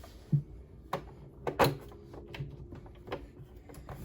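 A few separate knocks and clicks of things being handled, the loudest about a second and a half in.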